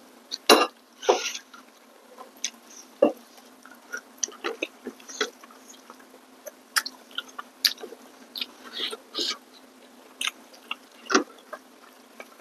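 Close-miked eating: chewing with wet mouth smacks and clicks, irregular and short, coming in little clusters.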